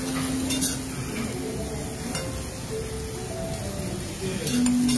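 Korean beef (hanwoo) and mushrooms sizzling in a pan on a tabletop induction hob, turned with metal tongs that click against the pan a few times.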